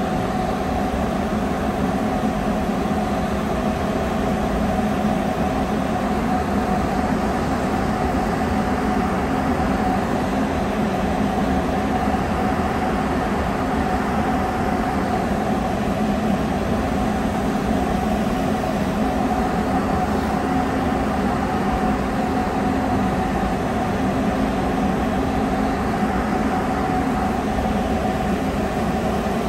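Cabin noise of a rubber-tyred Sapporo Subway Tōhō Line train running at steady speed through the tunnel: a continuous low rumble with a steady hum above it, holding an even level throughout.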